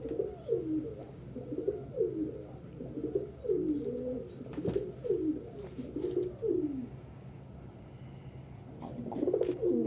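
Pet pigeons cooing, many short low coos overlapping in quick succession, thinning out for a couple of seconds near the end before picking up again. A single sharp click about halfway through.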